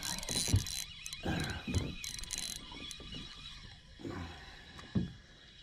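Spinning reel clicking as a hooked trout is reeled in: a fast run of ratcheting clicks for the first couple of seconds, then quieter, with a few dull knocks.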